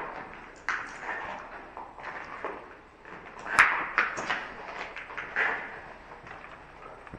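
Irregular knocks and clatter, a few sharp hits with short ringing, the loudest about three and a half seconds in.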